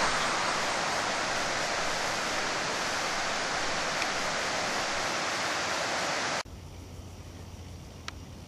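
Steady, even rushing of running water, like a mountain torrent or waterfall. It cuts off abruptly about six and a half seconds in, leaving only a faint low hum and a couple of small ticks.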